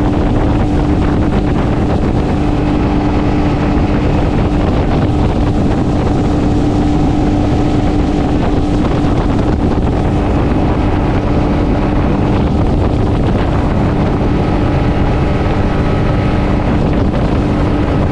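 Boat's outboard motor running steadily, with a constant hum and wind blowing on the microphone.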